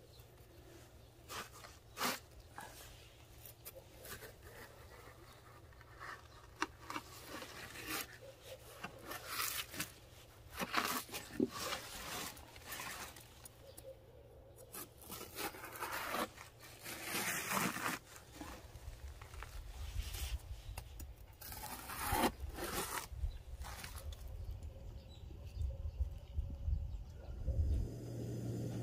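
Kitchen knife cutting and scraping through a frozen napa cabbage head: irregular crisp crunches and scrapes with short pauses between, the cabbage frozen solid in the hard cold.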